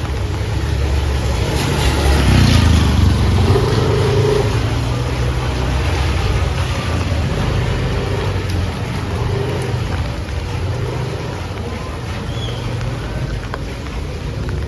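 A motor engine running, swelling about two seconds in and then slowly fading, over a steady hiss of rain.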